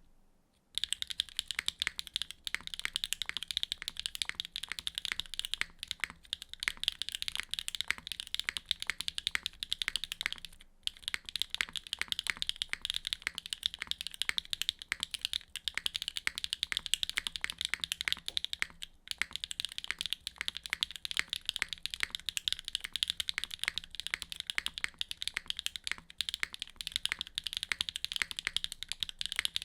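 Typing on a Neo65 mechanical keyboard with a carbon fiber plate and HMX Yunying switches: a fast, continuous stream of keystrokes, with two short pauses, about 11 and 19 seconds in.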